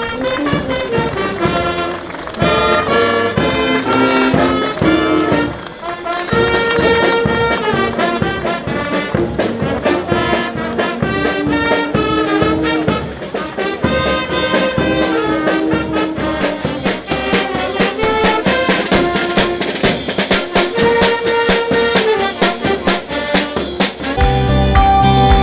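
Brass band playing an upbeat tune, trumpets and trombones over a steady drum beat. Near the end it cuts abruptly to a different piece with a heavier bass.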